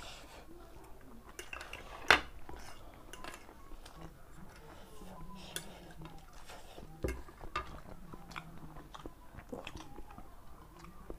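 Close-up eating sounds: chewing and wet mouth noises as noodles and boiled egg are eaten, with spoons clinking against ceramic plates. A single sharp clink about two seconds in is the loudest sound, and smaller clinks come around seven seconds in.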